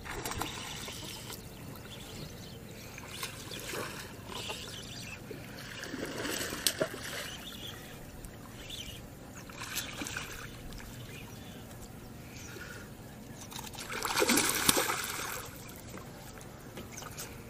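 Water splashing and trickling in a few short bursts, the loudest near the end.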